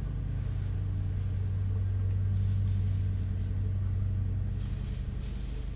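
Steady low rumble, swelling slightly in the middle, with faint hiss twice toward the middle and end.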